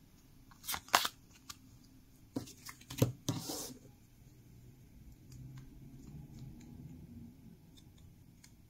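A stack of Pokémon trading cards being handled: several sharp snaps and taps of card on card, with a brief sliding rustle a little over three seconds in.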